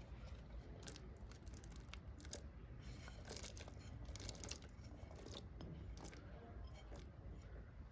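Irregular crunching and tearing in short crisp clusters, over a low steady rumble.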